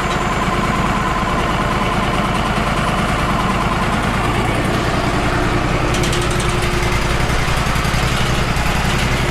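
Wood-Mizer LT35 HD portable band sawmill running steadily, its engine drone carrying a fast even pulse, and the sound brightens about six seconds in.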